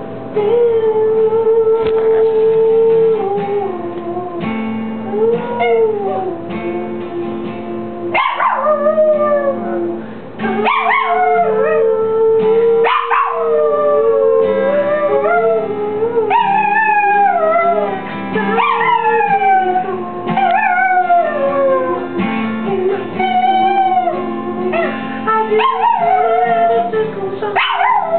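A Chihuahua howling along to music. From about eight seconds in come repeated falling howls, one every two to three seconds, over steady held notes.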